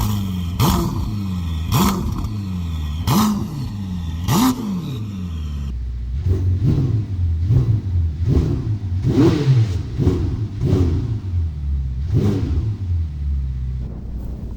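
Ferrari SF90 Stradale's twin-turbo 4.0-litre V8 idling and being blipped: four sharp revs about a second and a half apart, then a quicker run of about seven shorter revs, each rising and falling back to idle.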